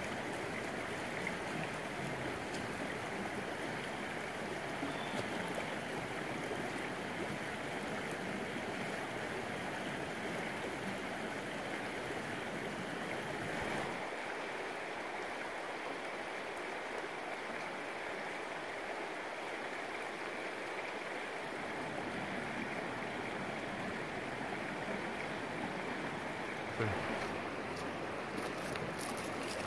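River water flowing, a steady rush, with a single brief knock near the end.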